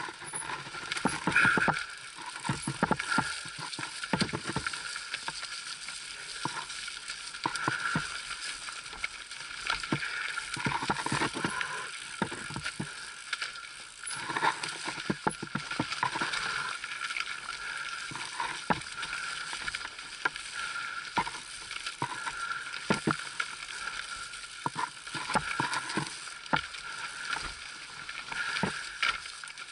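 Mountain bike descending a rough dirt singletrack: tyres rolling over roots and stones and the bike rattling, with frequent sharp knocks over a steady rushing noise.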